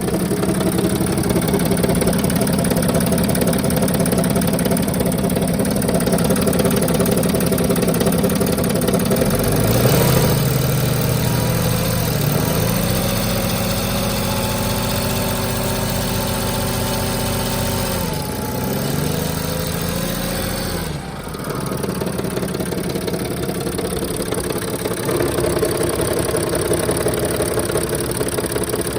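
Mercedes OM642 3.0 L V6 turbodiesel in a 2007 Sprinter idling with its accessory belt off, with injector knock and a chatter that the owner suspects is heavy gear chatter or the torque converter inside the transmission bell housing, plus an exhaust leak. About ten seconds in it revs up and holds a raised speed for several seconds, then falls back to idle a little before twenty seconds.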